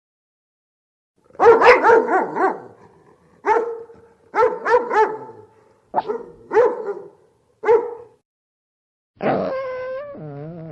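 A dog barking, first in a quick run of four or five barks, then in short groups of one to three with gaps between them. Near the end it gives a long, wavering cry.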